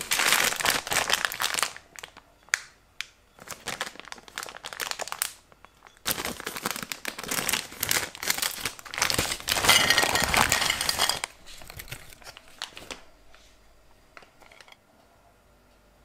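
Plastic Swedish Fish Mini candy bag crinkling as it is handled and opened, in several loud bouts of rustling that die away a few seconds before the end.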